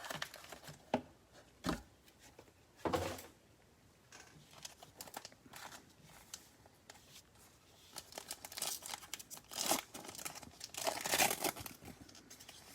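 A baseball card pack wrapper crinkling and tearing as it is opened by hand, in scattered crackles with a denser run of crinkling near the end.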